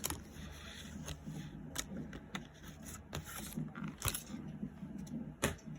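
Hands handling and opening Pokémon trading card retail packaging: scattered clicks, taps and rustling, with two louder clicks about four and five and a half seconds in.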